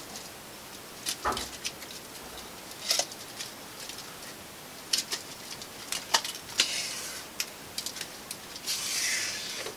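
Scattered light clicks and taps with a couple of short soft rustles near the end: small items being handled while more linen thread is fetched.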